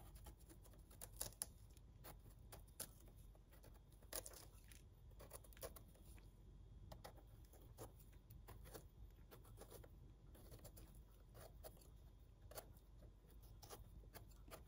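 Faint, scattered scrapes and soft clicks of a knife cleaning and cutting a bolete mushroom, over near silence.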